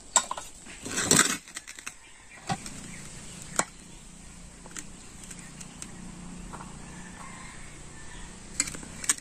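Metal serving ladle clinking and scraping against an aluminium rice pot and steel plates as cooked rice is served. There are a few sharp, spread-out clinks, with a longer, louder scrape about a second in.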